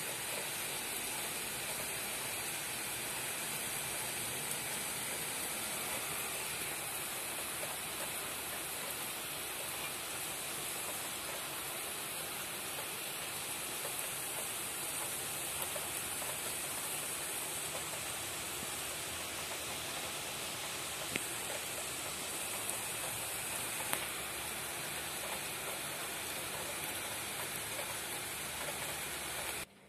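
Heavy rain falling in a steady, even hiss during a thunderstorm, with a few sharp taps about two-thirds of the way through. It cuts off suddenly just before the end.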